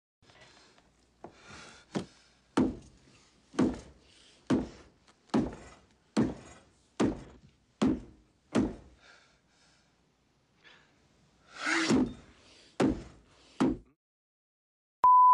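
About a dozen heavy thuds, roughly one a second, with a pause of about three seconds before the last three. Near the end comes a short, loud, steady beep, a censor bleep over bad language.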